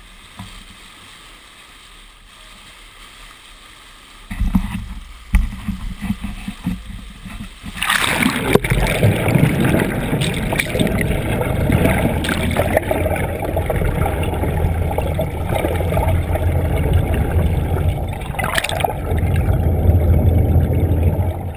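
Underwater sound through an action camera's waterproof housing beside a moving boat's bow: a quiet, muffled start, then uneven splashing about four seconds in as the camera goes into the water, and from about eight seconds in loud rushing water over a steady low hum from the boat's engine and propeller.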